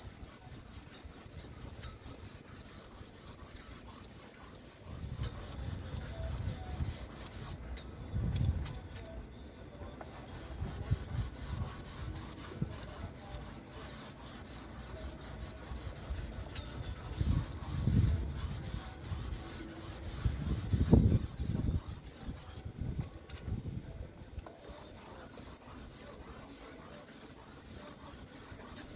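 Hand block-sanding with 320-grit sandpaper over a varnished wooden deck surface: uneven scratchy rubbing strokes, with louder low bumps now and then.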